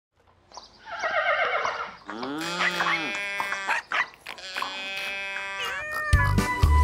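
Cartoon farm-animal calls, several in turn after a brief silence, one wavering and others rising and falling in pitch. Near the end, the upbeat music of a children's song starts.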